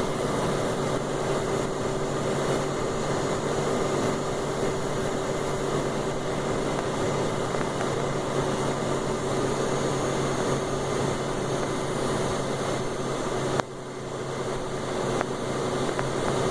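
Steady cabin noise of a Cessna 560 Citation V in flight: rushing air mixed with the even hum of its twin turbofans. There is a click about thirteen and a half seconds in, after which the noise drops briefly and builds back.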